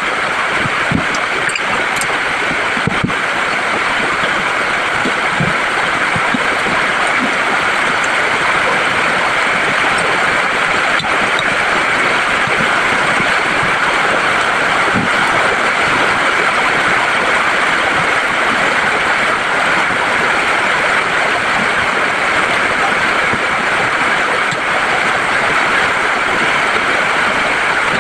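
Steady rain, a loud, even hiss with no change over the whole stretch. A few soft low clicks from eating come through it.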